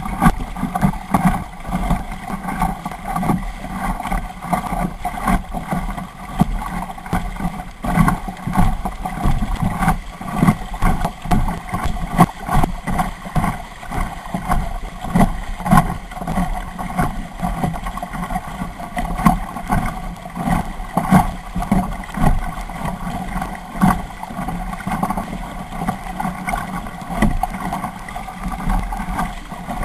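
Kayak paddling picked up by a camera on the bow of a plastic sit-on-top kayak: paddle splashes and water knocking against the hull about once a second, with a steady hum running underneath.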